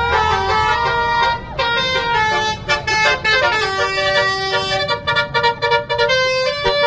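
Indonesian bus 'telolet' horn, a multi-tone musical horn, sounding a tune of held notes that change pitch in steps, several tones at once.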